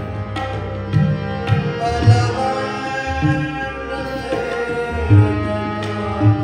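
Harmonium playing held, sustained notes and chords over tabla accompaniment. The tabla's deep bass strokes stand out every second or so.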